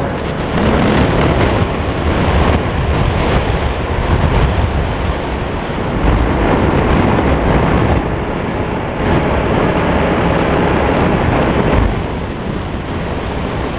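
Wind buffeting the microphone of a camera carried on a moving motorcycle, mixed with the motorcycle's engine running as it rides along.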